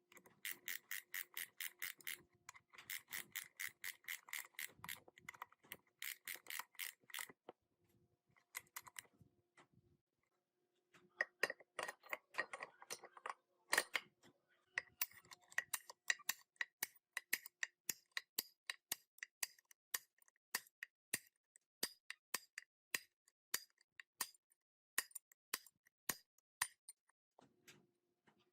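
Hand abrasive work on a part: quick back-and-forth rubbing strokes, several a second, in runs with short pauses. After about fifteen seconds this gives way to a steady series of sharp, evenly spaced clicks.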